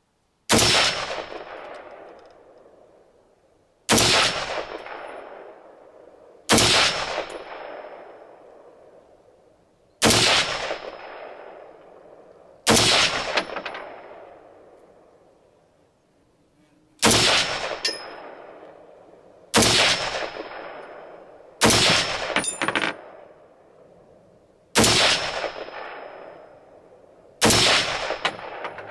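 Lithgow L1A1 (FN FAL-pattern) 7.62 mm semi-automatic rifle fired in slow aimed single shots, ten in all, each about 2.5 to 4 seconds apart. Each loud crack trails off in a long echo, and several are followed by a brief metallic ring.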